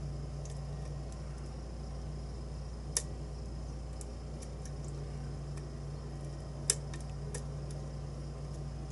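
Scattered light clicks of a lock pick and tension tool working the pin stacks of a challenge lock, two of them sharper, about three seconds in and near seven seconds in, over a steady low fan hum in the room.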